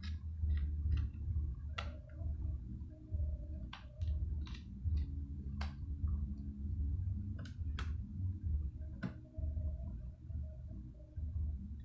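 Irregular small clicks and ticks from handling laptop parts and screws while fitting a drive into a slim caddy, over a steady low rumble.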